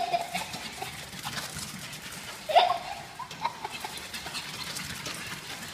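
Pug puppy and kitten scampering on a tile floor: light paw clicks and scuffles, with one short high cry about two and a half seconds in.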